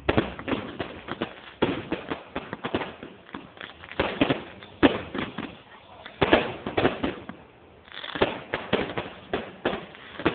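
Fireworks going off: rapid, irregular volleys of sharp cracks and bangs in clusters, the loudest bang about five seconds in.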